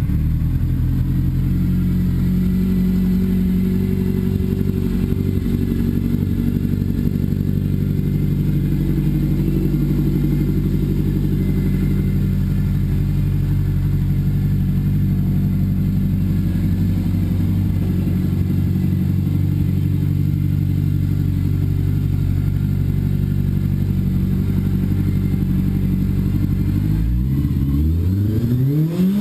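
1985 Kawasaki 750 Turbo's air-cooled inline-four engine idling steadily, then starting to rev up near the end.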